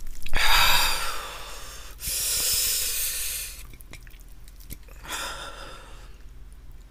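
A man breathing hard through his mouth, three long hissing breaths in and out, with a few sharp wet mouth clicks from chewing in between. These are the breaths of someone eating very spicy chicken wings.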